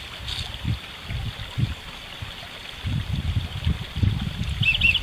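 Shallow stream trickling through mud, under an irregular low rumble, with a brief pair of short high chirps near the end.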